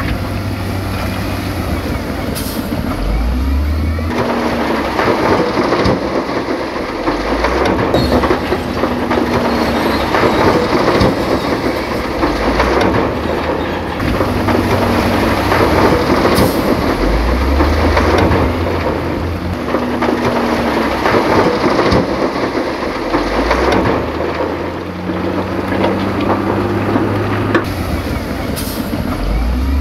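Heavy earthmoving machinery at work: engines rising in revs several times over a continuous heavy rumble.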